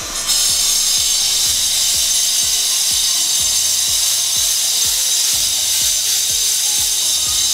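Loud construction-work noise inside a tunnel: a steady, high-pitched hissing grind that starts suddenly and cuts off suddenly near the end.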